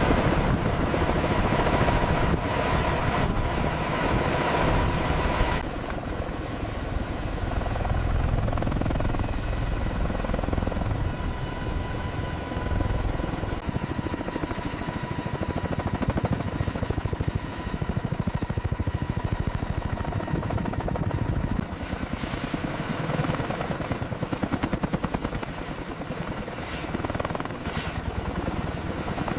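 A heavy engine running steadily with a fast, even pulsing; its sound changes and drops slightly about five and a half seconds in.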